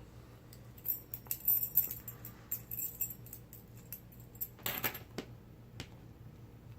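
A bunch of metal padlock keys jangling and clinking as some are taken off. There are scattered light clinks in the first few seconds and a louder jangle near the end.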